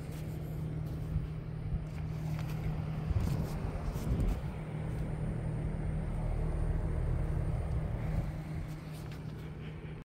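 Mitsubishi Electric mini-split heat pump outdoor unit running with a steady low hum, with a few brief rustles and clicks about three to four seconds in.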